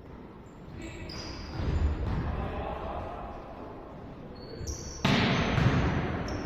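Indoor volleyball rally in a sports hall: short high squeaks of players' shoes on the court floor and ball impacts, with a sudden loud burst about five seconds in that fades over a second or so.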